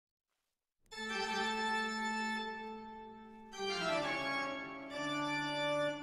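Background music of slow, held organ-like keyboard chords. It comes in about a second in, and the chord changes about halfway through and again near the end.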